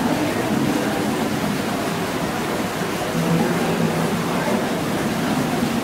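Water running steadily down a rock water feature, an even rushing hiss.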